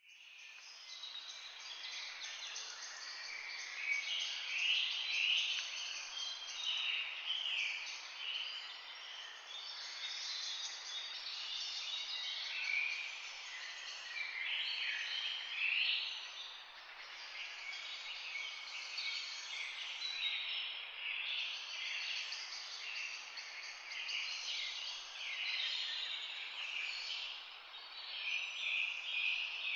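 Parrots chattering: many overlapping high chirps and squawks, dense and continuous.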